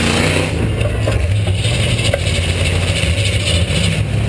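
A V8 demolition derby car's engine running loud and steady, heard from on board the car.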